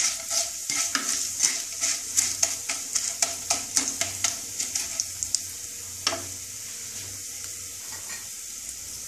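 Whole spices (coriander, cumin, black pepper, bay leaves) sizzling in hot oil in a non-stick kadai, stirred with a wooden spatula. Quick scrapes and taps of the spatula, about two or three a second, last until about five seconds in, then a steady sizzle once the stirring stops.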